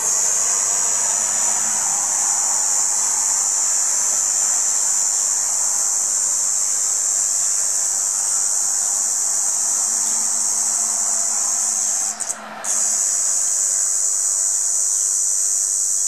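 A cicada singing a steady, loud, high-pitched buzz. The song breaks off briefly about twelve seconds in, with a couple of short stutters, then resumes.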